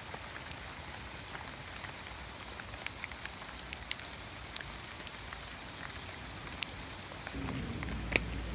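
Steady rain falling, with scattered sharp drops ticking on nearby surfaces. A low rumble comes in near the end.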